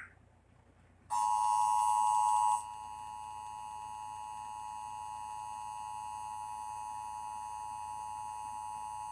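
Emergency Alert System two-tone attention signal (853 and 960 Hz sounded together) broadcast over the radio. It starts about a second in, loud for the first second and a half, then continues steadily at a lower level. It is the tone that announces an alert message, here a flash flood warning.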